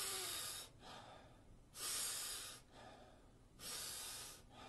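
A man demonstrating Wim Hof breathing: three powerful inhales through the mouth, each followed by a softer, relaxed exhale, in an even rhythm of about one breath every two seconds.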